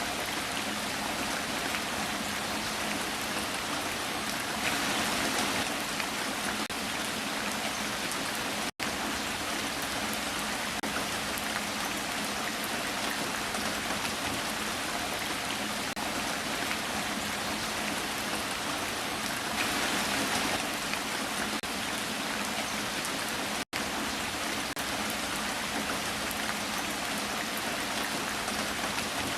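Steady heavy rain falling, an even hiss of drops that swells a little louder twice. Twice the sound cuts out for an instant.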